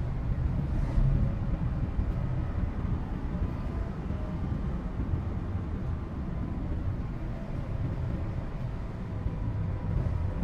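Cabin noise inside a Toyota HiAce Premio van on the move: a steady low rumble of engine and tyres on the road.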